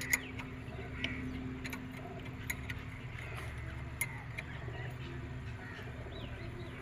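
Scattered sharp clicks and knocks of hand tools on metal, about five in all, over a faint steady low hum. A few bird chirps come in near the end.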